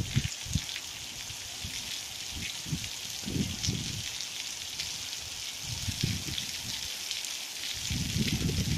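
Steady rain falling on rock and grass: a continuous hiss flecked with the ticks of single drops. Low rumbles on the microphone come and go, strongest about halfway and near the end.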